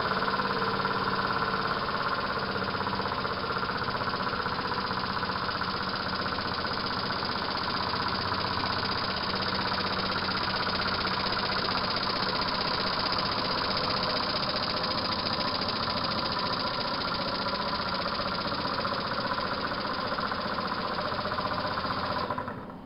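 PM Research No. 5 single-cylinder vertical model steam engine running steadily at speed, with a fast, even beat. The sound drops away near the end.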